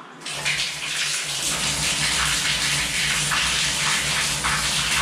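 Water gushing from open shower supply lines in a wall rough-in box and splashing onto a tiled shower floor, as the lines are flushed before the valve cartridge is installed. The flow comes on at full strength just after the start and then runs as a steady rushing splash.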